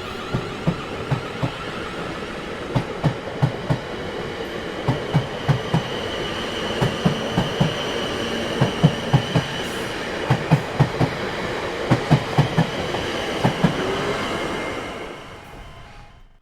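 Railway train wheels clacking rhythmically over rail joints in groups of two or three, over a steady rolling rumble, with a faint high wheel squeal in the middle. The sound fades out near the end.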